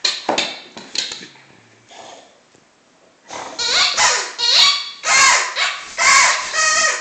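Rubber squeaky toy squeezed repeatedly in a dog's jaws: two sharp squeaks at the start, a fainter one a second later, then after a short pause a fast run of loud squeaks, about three a second.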